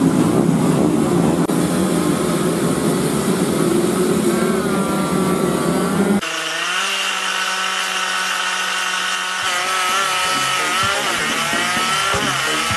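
A grid of two-stroke 50cc racing mini bikes revving hard together at the start, in a buzzing, chainsaw-like din. About six seconds in, the sound cuts abruptly to a closer, single engine note that rises in pitch as the bike accelerates away.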